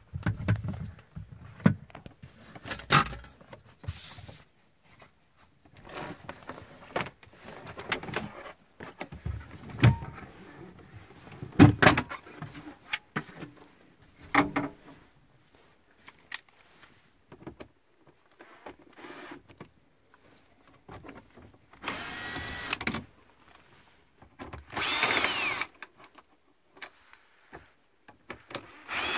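Cables and plastic trim being handled in a truck cab, with scattered rustles, clicks and knocks. Then a power screwdriver runs in short bursts, twice near the end, the second with a gliding whine, as it is worked at the fuse box bracket.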